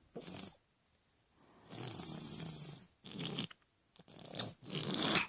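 Snoring in sleep: five noisy breaths, the longest lasting over a second, starting just before two seconds in.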